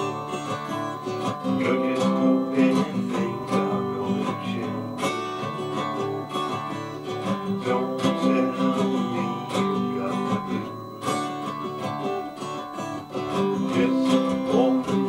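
Acoustic-electric guitar strummed in a steady rhythm, chords ringing out.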